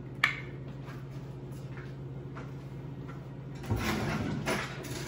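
A light click, then about three and a half seconds in a kitchen cupboard being opened: a thud followed by about a second of rustling handling noise.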